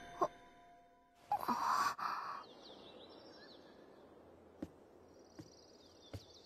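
A short breathy sigh, then faint bird chirps and a trill, with a few light clicks about three-quarters of a second apart.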